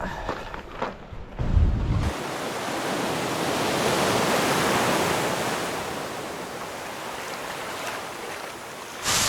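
Ocean wave breaking on the rocky shore: a rush of water that swells for a couple of seconds and then fades away. A short low rumble of wind on the microphone comes just before it, and a sudden loud rush starts near the end.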